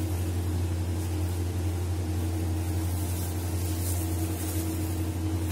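Steady low electrical or mechanical hum with a faint hiss, unchanging: indoor room tone, with no knocks or clinks.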